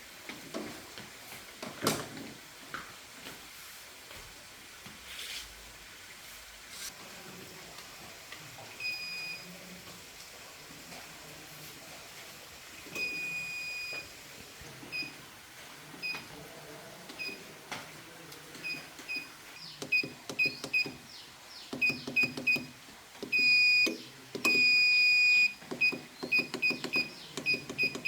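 Electronic beeps at one steady high pitch, short and long, starting about nine seconds in and coming thicker and faster in the second half, with a few knocks earlier on.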